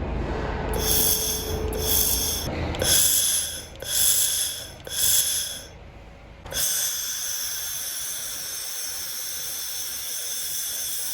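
Handheld fiber laser welding head firing: about five short bursts of hissing and crackling in the first six seconds, then one continuous welding hiss from about halfway on, with steady high tones running through it.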